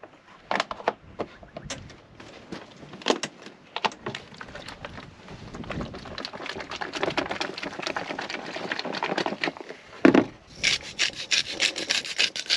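Hand-held spice grinder twisted over a bowl of ceviche near the end, a rapid gritty ratcheting rasp. Before it, scattered clicks of handled containers, plastic crinkling in the middle, and a single knock just before the grinding starts.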